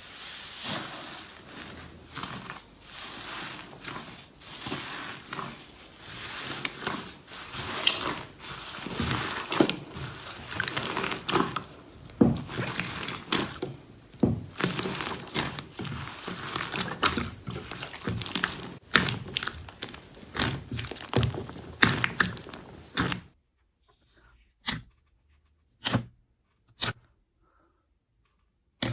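Slime being squished and poked by hand, making a dense run of sticky crackles, clicks and pops. The sound stops abruptly a few seconds before the end, leaving only a few single soft taps.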